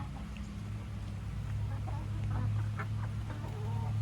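Domestic chickens clucking: short scattered calls, most of them in the second half, over a steady low hum.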